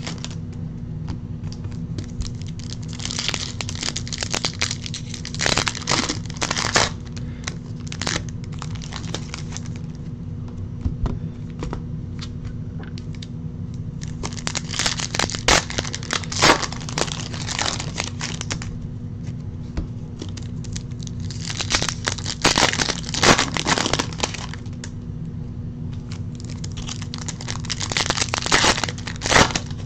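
Foil baseball-card pack wrappers crinkling and tearing as packs are opened and the cards handled, in several bursts a few seconds long, over a steady low hum.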